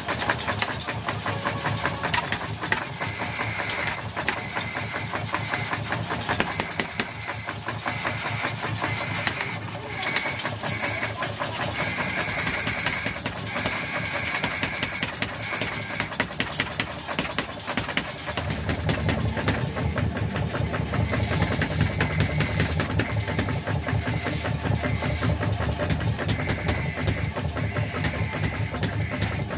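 Mechanical power hammer pounding a red-hot steel axe head in a rapid, steady run of blows, with hot chisels and punches struck between the ram and the work. About two-thirds of the way in the pounding turns heavier and deeper.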